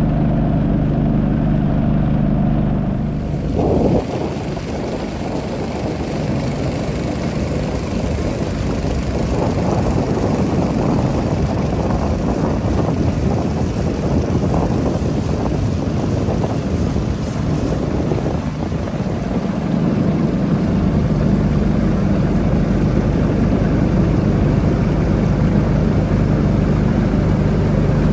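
Motorboat engine running steadily. From about four seconds in until about twenty seconds in, a stretch of rushing noise covers its steady hum.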